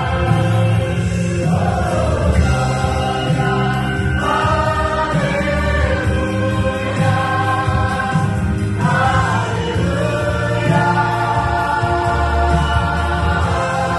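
Vocal ensemble singing a Christian worship song in close harmony, holding long chords that shift every few seconds, over a steady low accompaniment.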